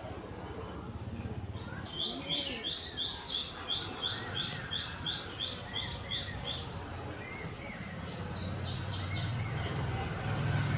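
A bird calling in a fast run of short, high, repeated notes, about three a second, that begins about two seconds in and fades near the end, over a steady low hum.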